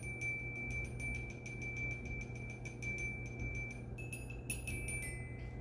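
Xylophone bars struck by hand, ringing like chimes. One note is tapped rapidly over and over for about three seconds, then a few strikes on a higher note and a lower note follow near the end.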